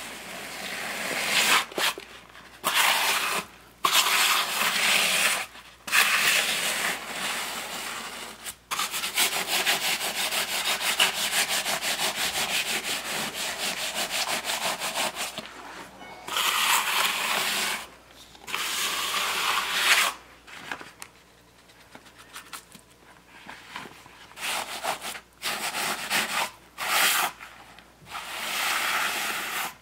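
A hand trowel and float scraping and smoothing gritty wet concrete in a countertop form, in repeated strokes with short pauses between them. About a third of the way in, the scraping runs on without a break for several seconds.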